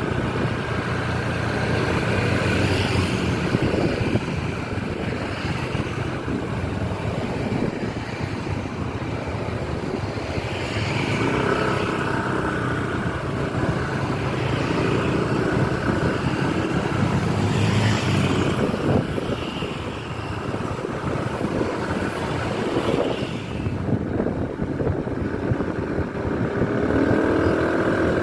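Buses running in traffic, with several bouts of held multi-note telolet horns sounding over the engine noise.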